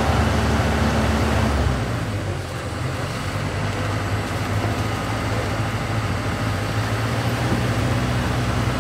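Heavy truck engine running steadily at low revs, its note shifting down and easing about two seconds in, then holding steady.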